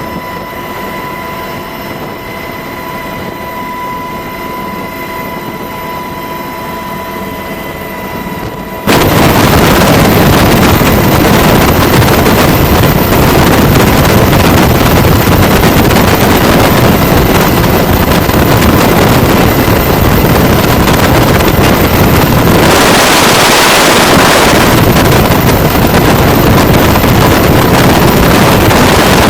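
UH-60 Black Hawk helicopter: at first a steady turbine whine with several held high tones, then, after an abrupt cut about nine seconds in, very loud even rushing of rotor wash and wind buffeting the microphone.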